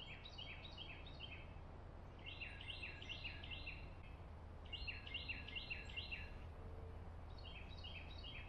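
A small songbird singing: four phrases, each a quick run of about five repeated high notes, with short pauses between them.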